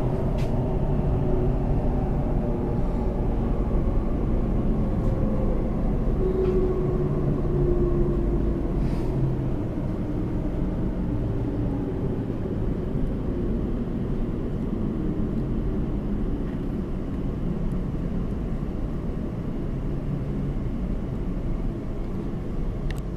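Steady running rumble of a Class 345 Aventra Elizabeth line train heard from inside the carriage, with faint tones from the train drifting in and out and the noise easing slightly in the second half.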